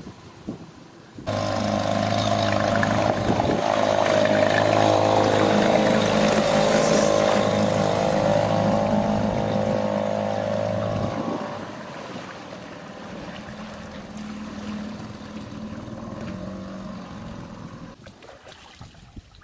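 Small Tohatsu outboard motor pushing an inflatable boat, running steadily. The sound cuts in abruptly about a second in, drops to a quieter run about halfway through, and fades lower still near the end.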